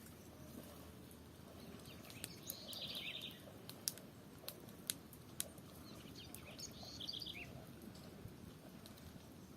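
Campfire crackling, with irregular sharp pops from the burning wood. A bird sings two short trilled phrases in the background, about three seconds in and again near seven seconds.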